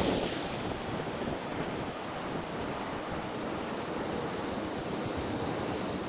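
Ocean surf washing onto the beach, a steady rush, with wind blowing on the microphone, a little stronger at the start.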